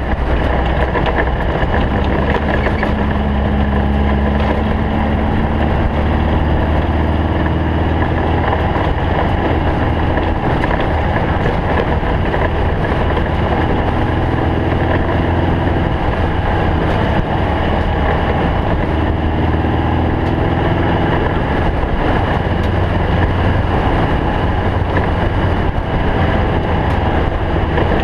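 Snowmobile engine running steadily at speed, its pitch drifting a little up and down, with wind noise on the microphone.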